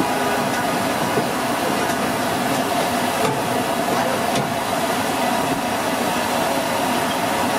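Potato fries deep-frying in a kadai of hot oil: a steady sizzle with a steady hum underneath.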